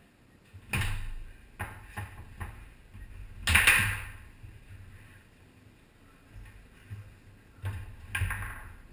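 Foosball played on a Tornado table: a run of sharp clacks and knocks from the ball being struck by the rod men and hitting the table walls, irregularly spaced, the loudest strike about three and a half seconds in.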